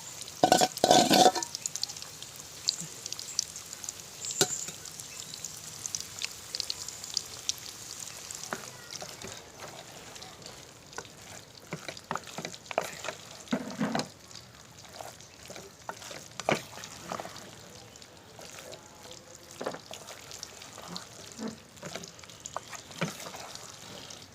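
A spatula stirring and scraping food sizzling in oil in a pan, with a loud clatter of the utensil against the pan about a second in. The sizzle is strongest in the first several seconds and then fades, while scattered scrapes and taps go on.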